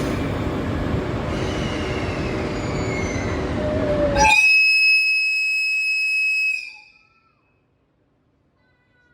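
EF81 electric locomotive's whistle blown once at departure: a loud, steady, high-pitched blast about two and a half seconds long, coming in over the rumble of the train about four seconds in. At the blast the background rumble vanishes and right after it the sound cuts off abruptly to near silence, the smartphone's microphone overwhelmed by the whistle.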